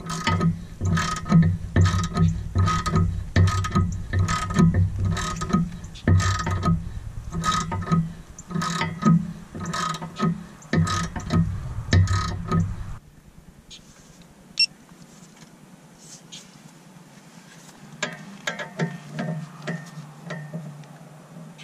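Socket ratchet clicking as it is swung back and forth on a sway bar end link nut, about two strokes a second. The ratcheting stops suddenly about thirteen seconds in, leaving only a few faint clicks of handling.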